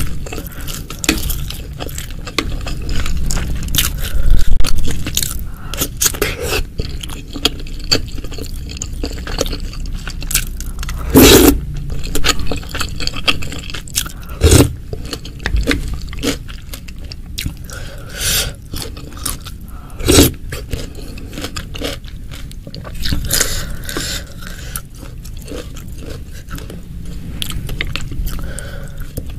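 Close-miked eating of a pentol begal meatball and beef ribs in spicy broth: irregular biting, chewing and scraping with many sharp wet clicks, broken by several louder knocks.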